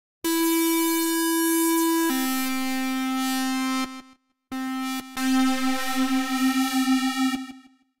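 Korg microKORG software synthesizer (Korg Collection) playing its 'Classic lead' preset: a bright, buzzy single-line lead holding a note, then stepping down to a lower one about two seconds in. After a short break a long held note starts to pulse and waver, then fades out near the end.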